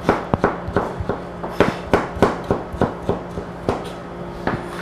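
Chef's knife dicing tomatoes on a plastic cutting board: a run of uneven knocks, about three a second.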